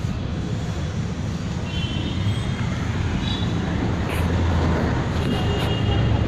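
Steady low rumble of street traffic, a little louder in the second half, with a few faint, brief high-pitched chirps over it.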